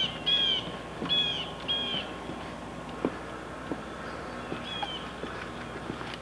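A series of short, pitched animal calls: four in quick succession at the start and one more about five seconds in, over a steady recording hum, with a few faint clicks.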